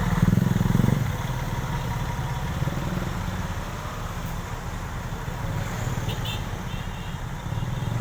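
Road traffic: a vehicle engine runs loud and close for about the first second, then drops to a steady rumble of passing traffic.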